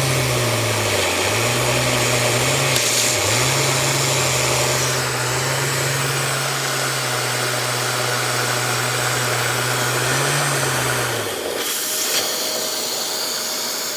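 Vacuum cleaner running loudly with a steady hum and hiss. The hum dips in pitch twice in the first few seconds, then cuts out near the end while the hiss carries on.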